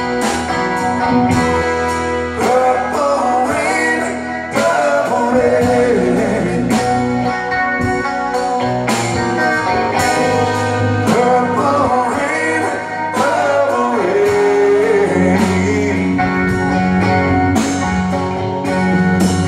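Live rock trio of electric guitar, bass guitar and drums playing a slow ballad, with drum hits marking a steady beat and a melody line bending in pitch over the chords.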